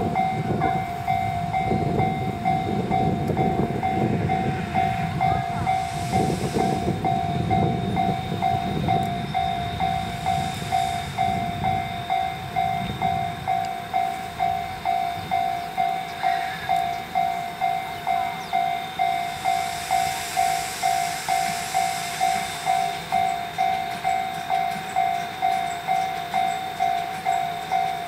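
Japanese railway level-crossing warning bell ringing steadily, an electronic ding about one and a half times a second, signalling that a train is approaching. A low rumble runs under it over the first dozen seconds, then fades.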